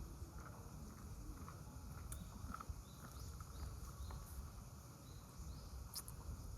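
Faint outdoor park ambience: a steady low rumble with a run of about five short, rising, high bird chirps in the middle, evenly spaced, and a couple of sharp clicks.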